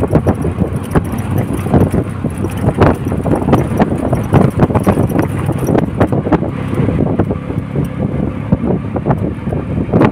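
Wind buffeting the microphone over the running noise of a moving road vehicle, a rough, uneven rumble throughout.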